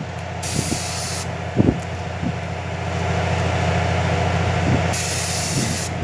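Air-fed gravity spray gun spraying paint onto a motorcycle frame. Its hiss rises in two strong bursts of about a second each, near the start and near the end, over a steady low hum.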